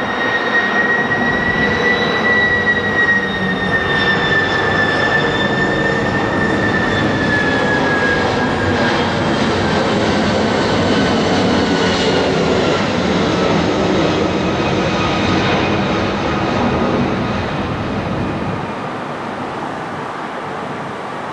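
Airbus A330 jet airliner passing low overhead on approach with its landing gear down: steady jet engine noise with a high whine that slowly falls in pitch, fading somewhat near the end as the aircraft moves away.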